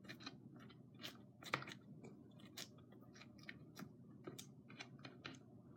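Fingers pressing and tucking wrung-out sphagnum moss around an orchid's roots in a clear plastic pot: faint, scattered crackles and small clicks.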